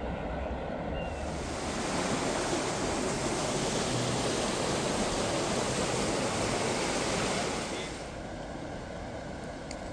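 Fast, turbulent floodwater rushing through a flooded ford, a steady rushing noise that swells about a second in and drops back near the end.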